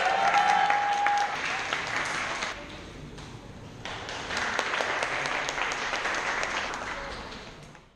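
A crowd clapping and applauding. It dies down about two and a half seconds in, swells again, then fades out near the end.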